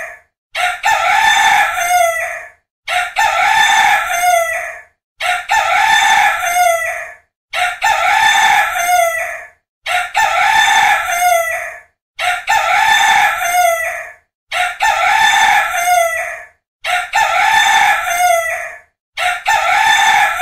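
Rooster crowing, the same cock-a-doodle-doo repeated about nine times in a row. Each crow lasts about two seconds, with a short gap before the next, as if one recording were looped.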